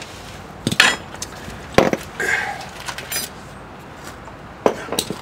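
Several sharp metal clanks and clinks, spread a second or so apart, as a removed steel front axle shaft and hand tools are set down on the asphalt.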